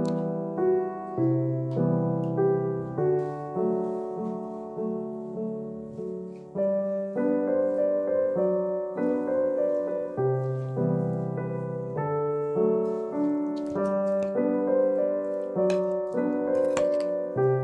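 Background music: gentle solo piano playing a slow melody over chords.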